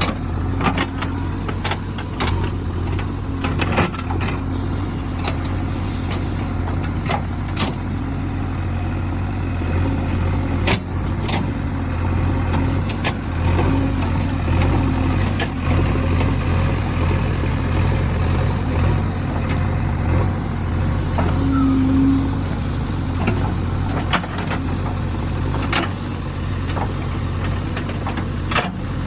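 Heavy diesel engine running steadily, with scattered sharp knocks and clanks throughout.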